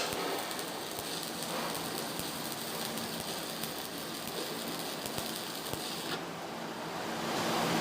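Electric arc welding crackling and sizzling steadily as a bead is run overhead; the crackle drops away about six seconds in.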